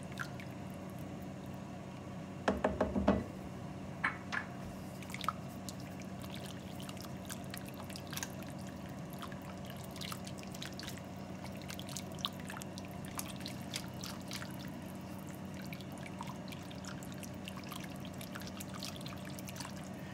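Whisk stirring thin broth in a pan, the liquid sloshing and splashing, with a quick run of clatters about two and a half seconds in. A steady low hum sits underneath.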